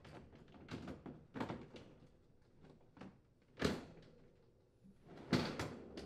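Plastic freezer bin knocking and scraping as it is lowered into a Whirlpool refrigerator's bottom freezer drawer, then the drawer sliding shut with louder knocks near the end.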